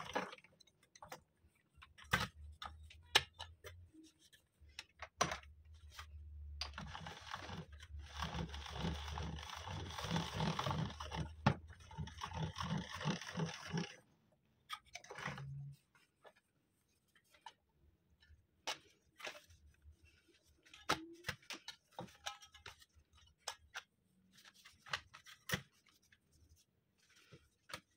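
Hand-cranked stainless steel pasta machine turning, its gears and rollers grinding and clicking in a rapid rhythm as a sheet of dough is pressed through. The cranking stops suddenly about halfway, and is followed by scattered clicks and knocks of the machine and dough being handled.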